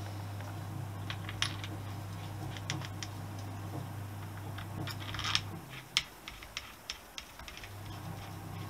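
Scattered light clicks and taps of hand tools and small metal parts being handled, over a steady low hum that stops for about two seconds near the end.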